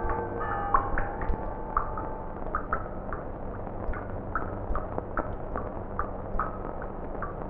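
Water dripping: short, high plinks of falling drops at an irregular two or three a second, over the steady hiss of an old film soundtrack. Sustained music tones fade out in the first second.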